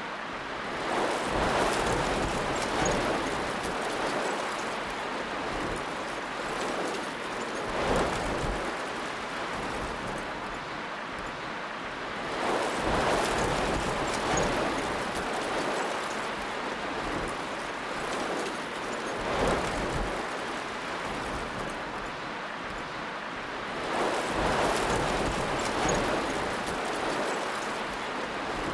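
A rushing, rain-like noise that swells and fades in a repeating cycle about every eleven and a half seconds, each cycle with one short crack; the exact repeat marks a looped sound bed rather than live sound.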